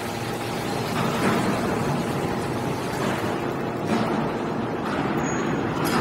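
Hydraulic metal scrap baler running: the steady hum of its hydraulic power unit as the ram compresses loose metal turnings into a bale, with a few short knocks.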